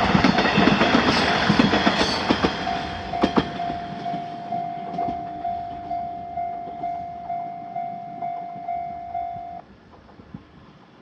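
Japanese level-crossing warning bell dinging about twice a second while a passing train's wheels clatter over the rail joints and fade away. The bell cuts off suddenly near the end as the train clears the crossing.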